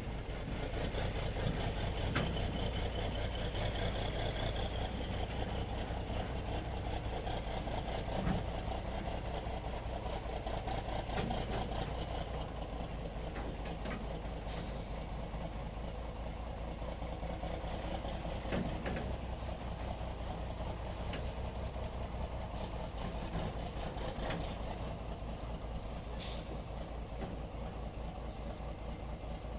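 Nissan Diesel (UD) truck's diesel engine running steadily at a low, even pace, with two brief sharp clicks, one about halfway through and one near the end.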